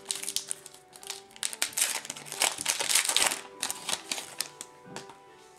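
Foil wrapper of a Totally Certified football card pack crinkling as it is torn open by hand: a quick run of crackles, loudest around the middle, tapering off near the end.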